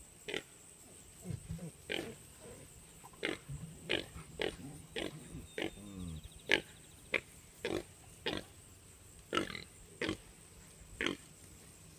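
Tamworth pigs grunting, with low, wavering grunts between a string of about a dozen short, sharp calls coming every half second to a second.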